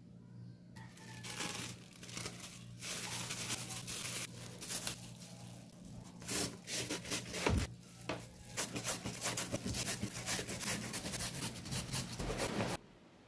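Peeled raw taro grated on a flat stainless-steel hand grater: a rapid, uneven run of rasping scrapes, with a louder knock about halfway through. The scraping stops abruptly near the end.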